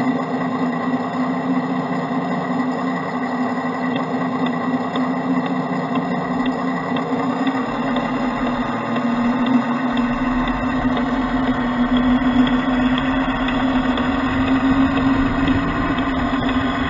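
Radio-controlled Freightliner Cascadia semi-truck with trailer driving slowly, with a steady engine-like drone.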